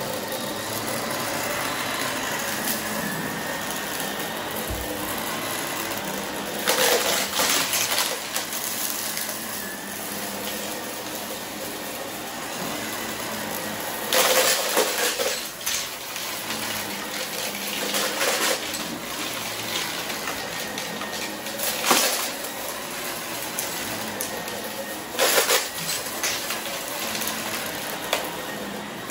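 Vacuum cleaner running steadily over carpet, with a burst of crunching, rattling crackle every few seconds as it sucks up confetti.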